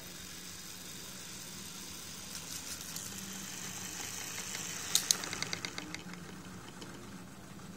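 Small DC motors of a homemade automatic drilling machine and conveyor running with a steady hum and high whir. About five seconds in come two sharp clicks, then a quick run of ticks that fades out.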